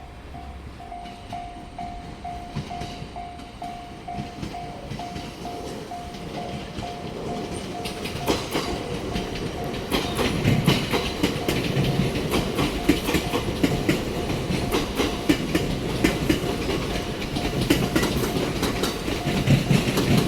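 Japanese level-crossing warning bell ringing about twice a second while a train approaches and passes. The train's wheels rumble and clatter over the rail joints, and get much louder about halfway through.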